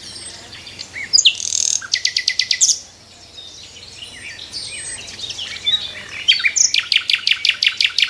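Several songbirds chirping and singing together. A rapid trill of evenly repeated notes comes about two seconds in for under a second, and another starts about six and a half seconds in and runs on as the loudest sound.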